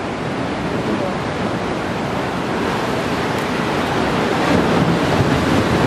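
Ocean surf washing against shoreline rocks: a steady rush of breaking water that swells a little louder in the second half.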